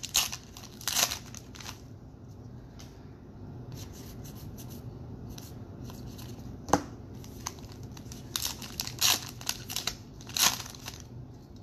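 Foil wrappers of Topps baseball card packs being torn open and crinkled, with cards handled and flicked through. It comes as bursts of sharp rustling and snapping, with a single sharp click about seven seconds in.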